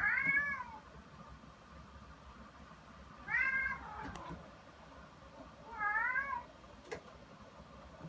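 A cat meowing three times, a few seconds apart, each meow a short call that rises and falls in pitch.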